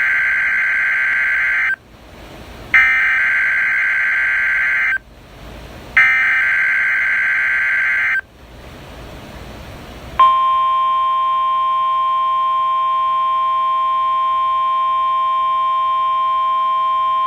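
NOAA Weather Radio Required Weekly Test signal. First come three bursts of SAME digital header data tones, each about two seconds long with a second's pause between them. About ten seconds in, the 1050 Hz warning alarm tone starts: one steady, unbroken pitch.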